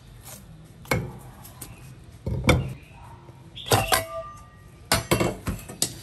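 Stainless steel bowls and kitchen utensils clattering on a stainless steel counter: a series of separate clanks and knocks, one of them leaving a short metallic ring.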